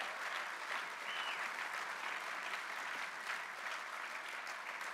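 Large seated audience applauding steadily, easing slightly near the end.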